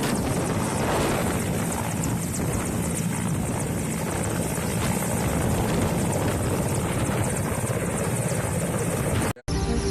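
Firefighting helicopter running, its rotor beating in a rapid, even chop. It cuts off suddenly near the end as music begins.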